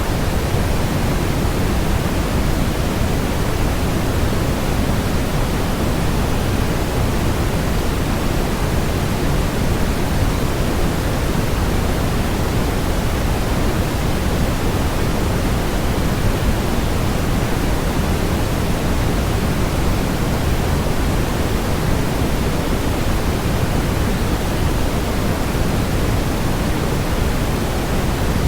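Steady generated white noise: an even, unchanging rushing hiss with no pitch or rhythm, heavier in the lows than in the highs.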